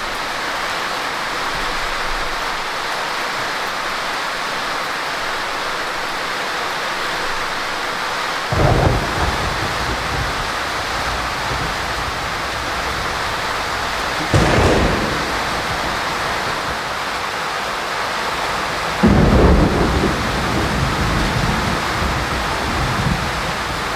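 Heavy rain falling steadily, with thunder rumbling three times over it, the last rumble the loudest and longest.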